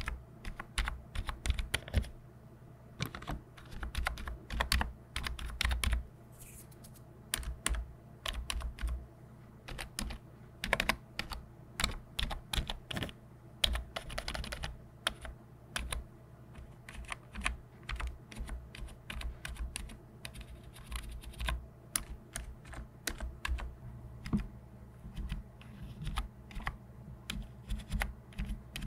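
Fingertips tapping and pressing the keys of a backlit computer keyboard, in irregular runs of clicks with short pauses between them.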